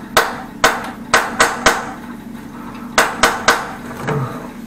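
Hand hammer striking hard at a tiled bathroom wall around a broken angle valve, chipping into the wall to expose the pipe. Sharp blows with a metallic ring come in two bursts: five quick blows, a pause of about a second, then three more and a faint last one.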